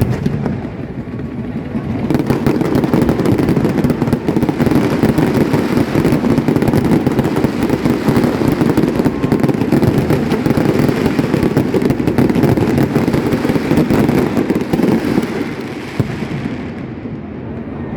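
Fireworks going off in a dense, continuous barrage of overlapping bangs and crackles that builds up about two seconds in and dies down near the end.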